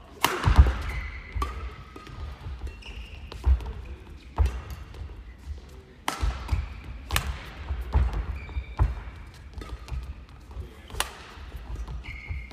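Badminton singles rally: sharp racket hits on the shuttlecock, the loudest a jump smash about half a second in, with court shoes squeaking on the floor and footfalls between strokes.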